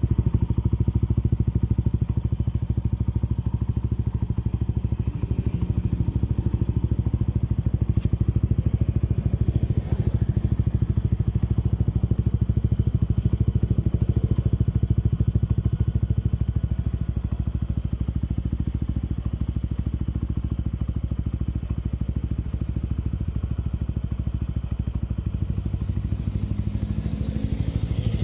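Motorcycle engine idling through a JVT Power Pipe V3 adjustable aftermarket exhaust: a steady, rapid run of low exhaust pulses, a little quieter in the second half.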